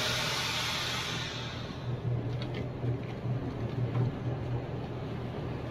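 Vacuum sealer cycling on a pack of chicken: a sudden hiss that fades away over about two seconds, over a steady low hum of its pump.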